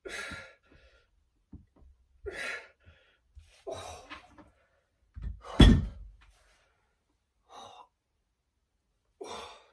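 A man breathing hard and gasping as he strains through a resistance-band workout. There are about six heavy breaths a second or two apart, and the loudest is a sharp blast about halfway through.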